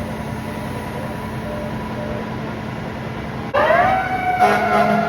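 Steady low hum, then about three and a half seconds in a fire truck siren starts suddenly, sliding up in pitch and holding a loud wail.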